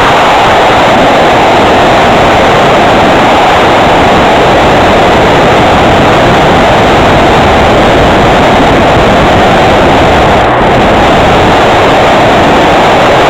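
Home-made RC plane in flight, heard from a camera mounted on its wing: a loud, steady rush of wind and propeller noise, with a brief dip about ten and a half seconds in.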